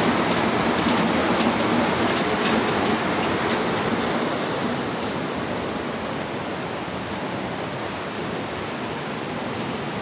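Fast-flowing floodwater rushing steadily, a dense even noise that eases slightly in the second half.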